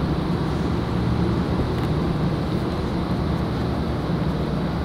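Steady low rumble of vehicle noise, even throughout with no distinct knocks or calls.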